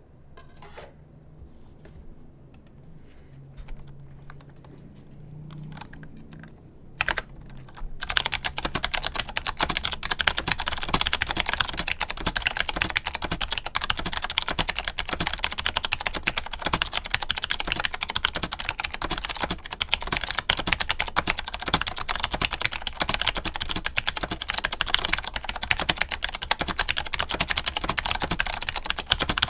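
Typing on a mechanical keyboard with clicky switches: a few isolated key clicks at first, then from about a quarter of the way in a fast, continuous clatter of keystrokes.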